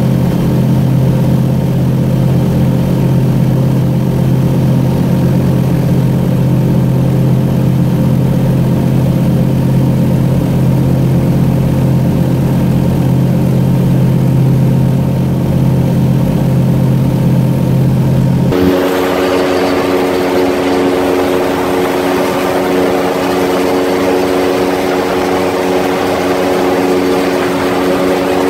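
Airboat engine and propeller running steadily and loud. About two-thirds of the way through, the pitch steps up suddenly as the engine revs higher.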